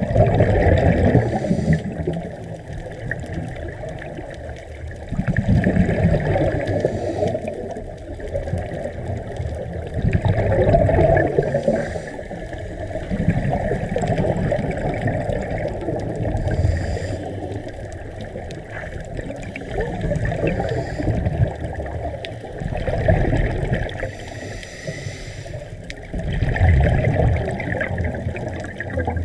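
Water sloshing and surging, swelling up and easing off every few seconds, with a muffled sound weighted toward the low end.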